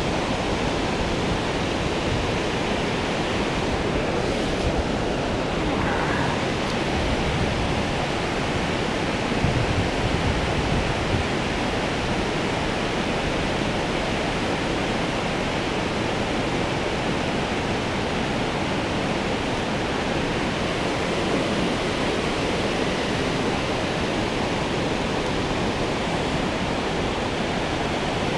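Steady rushing of river water, an even noise that holds at the same level throughout.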